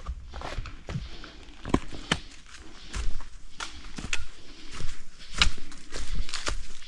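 Footsteps of hikers walking along a forest trail: a steady series of short steps, about one every half second to a second.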